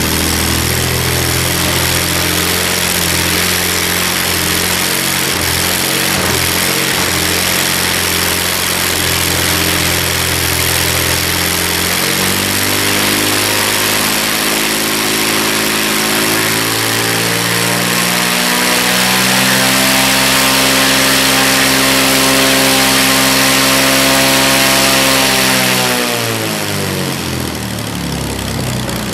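Aircraft piston engine driving a new three-bladed carbon-fibre pusher propeller through a static run-up. It runs steadily at low throttle, climbs in steps to full power about two-thirds of the way in and holds there, then winds down quickly toward idle near the end. The full-power static check reads about 2660 rpm.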